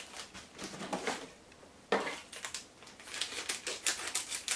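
Off-camera kitchen handling: a sharp knock about two seconds in, followed by a string of small irregular clicks and rustles.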